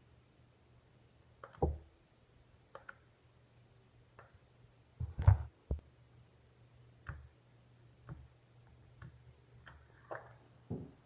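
Scattered clicks and knocks of slime-making containers and utensils being handled and set down, about a dozen irregular taps. The loudest knock comes about five seconds in, and a faint steady low hum runs underneath.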